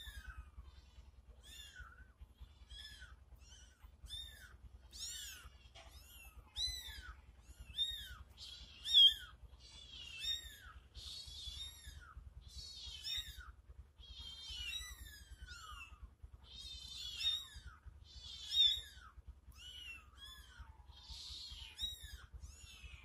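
Very young kittens mewing over and over in short, high, thin calls that rise and fall in pitch, roughly one to two a second.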